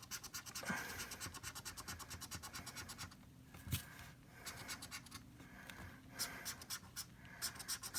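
Scratching the coating off an instant lottery scratch ticket: quick, even strokes, about ten a second, in several bursts with short pauses between them.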